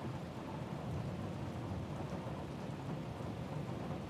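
Steady rain with a low, continuous rumble of thunder underneath, no sharp claps.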